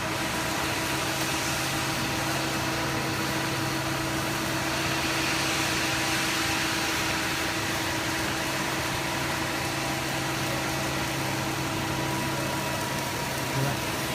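Hydraulic power unit of a CNC press brake running with a steady hum, with a brief louder knock near the end.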